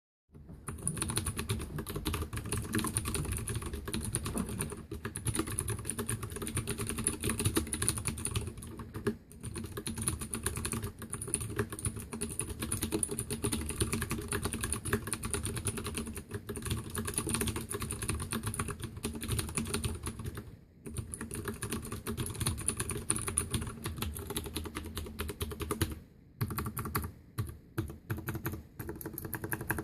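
Fast, continuous typing on a Leopold FC750R mechanical keyboard with clicky Cherry MX Blue switches: a dense run of key clicks and keycap clacks broken by a few brief pauses, thinning out near the end.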